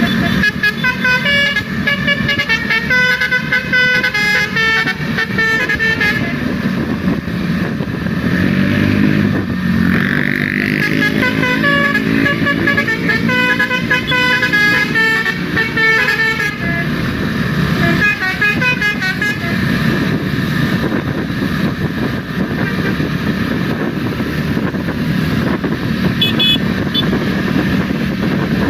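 Telolet basuri bus horns playing quick runs of melodic notes in several bursts over the noise of engines and traffic. In between, around the middle, a vehicle's engine pitch slides up and down.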